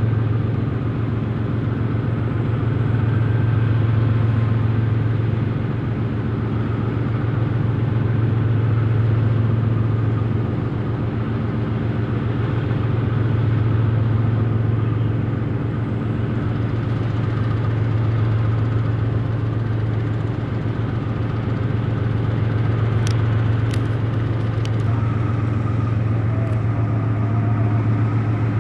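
Hitachi diesel-electric locomotive engines idling: a steady low drone that swells and eases about every five seconds.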